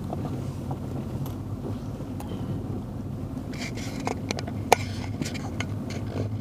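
Motorboat engine running with a steady, low drone. Scattered sharp clicks and knocks come in the second half, the loudest just before five seconds in.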